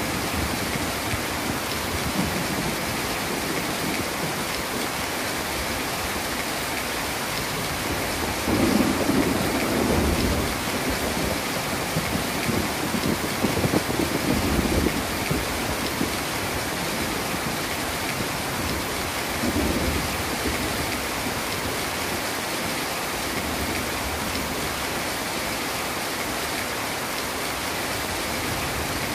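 Heavy rain pouring steadily, with low thunder rumbling several times, loudest about nine and about fourteen seconds in, and once more about twenty seconds in.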